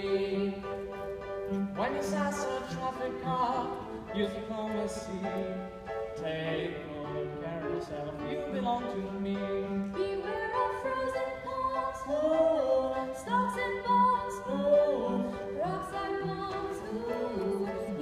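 A song from a stage musical: a singing voice with vibrato over instrumental accompaniment, heard live in the theatre.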